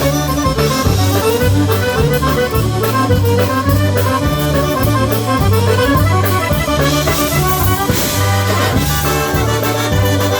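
Live polka band playing an instrumental passage, with accordion over a steady bass line and drum beat.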